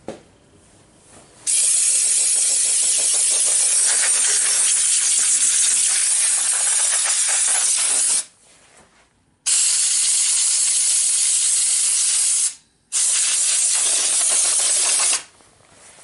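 Compressed-air blow gun blasting air into a desktop PC case to blow out the dust: a loud hiss in three blasts, the first about six and a half seconds long starting a second and a half in, then two shorter ones with brief breaks between.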